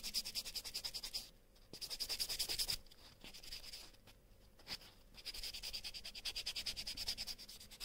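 Nail buffer rubbing rapidly back and forth over a polygel-extended fingernail, taking the surface from smooth to matte so the base coat will grip. The strokes pause briefly about a second and a half in and again from about 3 to 5 seconds, then pick up again.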